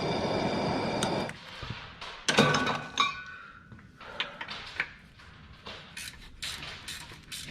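A heating tool hisses steadily on a seized sway bar bracket bolt and shuts off about a second in. Metal tools then clank and click against the bolt and bracket, with one sharp metallic knock that rings briefly.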